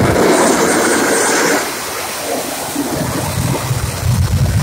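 Jet truck's jet engine at full thrust with flame shooting from the stack: a loud, even roar that starts abruptly and drops to a lower rumble about a second and a half in as the truck pulls away.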